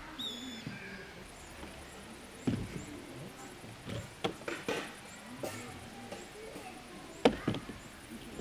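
Scattered knocks and clicks of objects being handled, the loudest about seven seconds in. A short high falling chirp at the very start, and a faint, evenly pulsed high ticking from about a second in.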